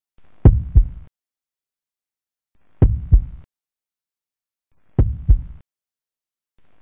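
Heartbeat sound effect: three slow double thumps (lub-dub), each pair a little over two seconds apart.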